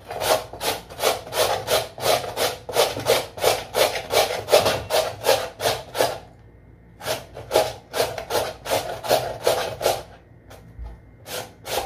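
Raw potato being grated by hand on a metal grater, rasping strokes about three a second. The strokes pause briefly about six seconds in, resume, then thin out, with one last stroke near the end.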